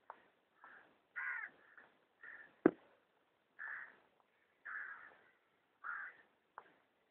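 Young ostrich chicks calling: about six short, rough calls, roughly one a second. A single sharp click about a third of the way in stands out as the loudest sound.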